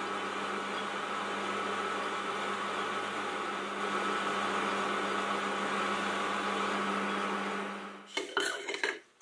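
Mini lathe running steadily while turning an aluminium mandrel, a steady motor hum. The hum dies away about eight seconds in, followed by a few light clicks and knocks as the 3D-printed plate is fitted onto the part.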